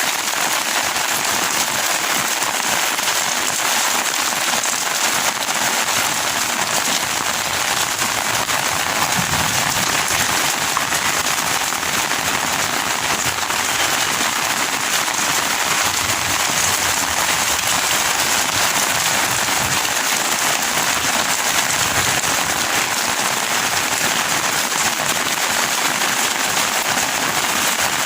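Heavy rain falling steadily, a dense, even crackle of countless drops hitting surfaces.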